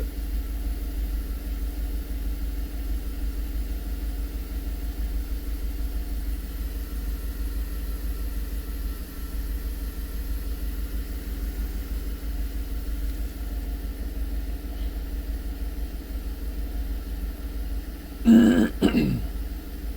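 The 5.3-litre V8 of a 2012 GMC Yukon idling steadily, not misfiring at the moment despite its known random misfire. A short throat-clearing near the end.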